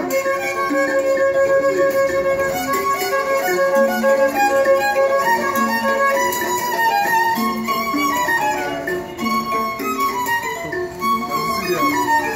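Violin bowed in a melody of held and moving notes, played without pause.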